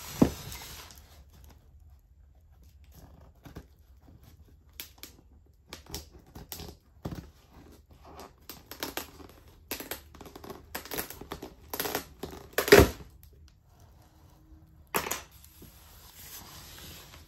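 A cardboard shipping box knocks down once at the start, then packing tape is picked at and peeled off the cardboard: a run of short scratching and tearing sounds, the loudest a little before the last few seconds.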